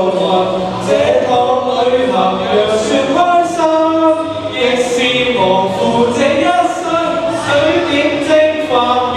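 A voice singing a Cantonese pop song, the melody carried on held, gliding notes.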